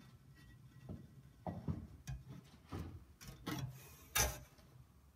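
A handful of faint, irregular knocks and clicks, the loudest about four seconds in.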